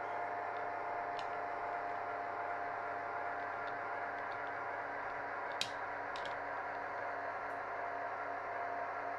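H0-scale model freight train running slowly along the layout track: a steady whirring hum with a few short sharp clicks, the loudest about five and a half seconds in.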